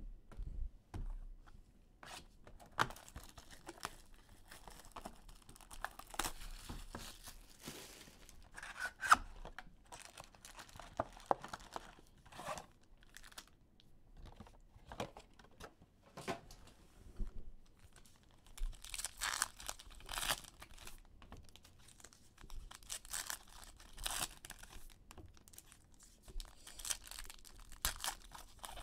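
Trading card pack wrappers being torn open and crinkled by hand, in irregular short scratchy rips, the loudest run a little past the middle.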